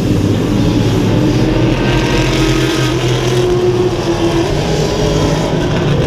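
A field of IMSA Continental Tire Challenge sports cars running together past the track, several engines heard at once as a steady, layered drone, with one engine note rising a little in the middle.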